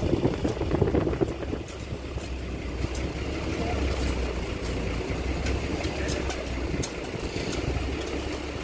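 Steady low outdoor rumble with faint scattered ticks through it, and indistinct voices in the first second or so.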